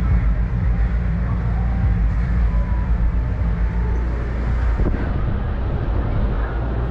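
Steady low rumble and hum of a Ferris wheel ride heard from inside its enclosed gondola, with faint fairground sounds beneath and a single light click about five seconds in.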